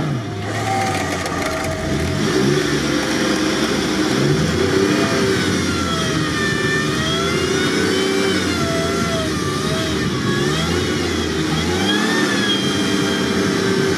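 Off-road vehicle engines revving up and down again and again under load, pulling a stuck four-tonne off-roader out of a flooded bog.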